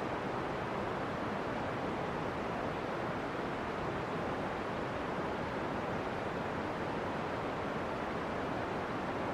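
Steady, even rushing noise with no pitch, like wind.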